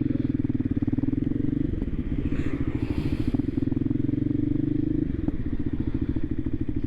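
Voge 300 Rally motorcycle's single-cylinder engine running at low revs with a fast, even pulse. Its note shifts slightly about five seconds in.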